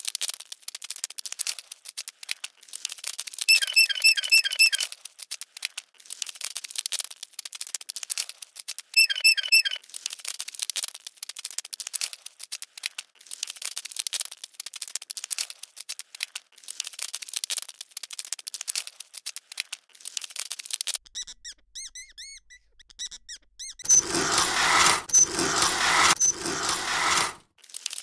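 Sheet-metal screws squeaking in short bursts as they are backed out of a clothes dryer's steel back panel, amid many small clicks and ticks. Near the end there are a few seconds of louder metal scraping and rattling as the panel comes off.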